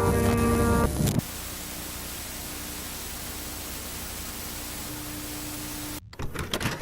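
Music ends about a second in and gives way to a steady hiss of static with a faint hum. About six seconds in the static breaks off into a few crackling, glitchy bursts.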